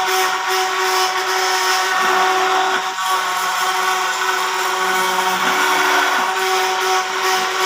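Small high-speed motor of a homemade CNC machine running steadily with a constant whine and hiss, like a power tool, with a few slow low sweeps in pitch.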